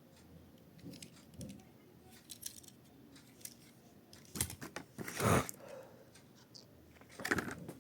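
Diecast toy cars and their packaging being handled: scattered small clicks and rustles, with a louder scraping rustle lasting about a second, roughly five seconds in.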